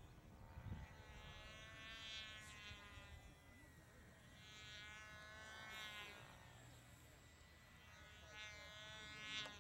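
Faint buzz of a model biplane's motor in flight, its pitch rising and falling several times as the plane manoeuvres.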